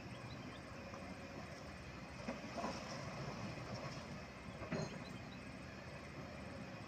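Kobelco SK200-10 excavator's diesel engine running steadily as it digs in river water, with a few short knocks from the bucket and arm, about two and a half and five seconds in.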